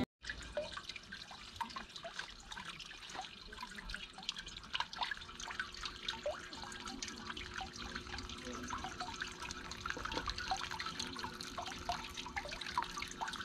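Small stream of water trickling and dripping, a busy patter of little splashes and bubbling drops, with a faint steady hum underneath.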